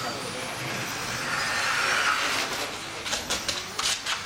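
Radio-controlled model racing cars running on an asphalt track: a steady high motor and tyre noise with a faint rising whine at the start and a few short sharp crackles near the end.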